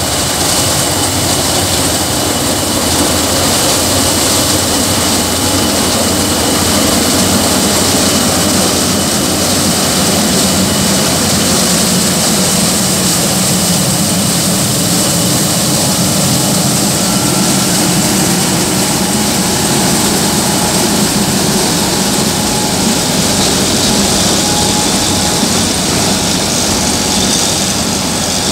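New Holland combine harvester fitted with a Dasmesh maize cutter header, running steadily: a low engine drone under a loud, even high hiss that barely changes.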